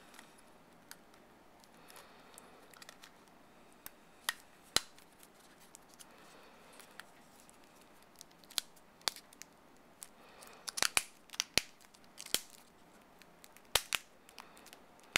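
Hard plastic phone case shell and spine being pressed and snapped onto an iPhone, giving scattered sharp plastic clicks over quiet finger handling, with a quick run of several clicks about two-thirds of the way through.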